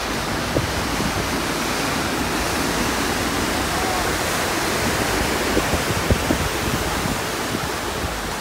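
Ocean surf breaking and churning against rock cliffs below, a steady rushing wash of white water.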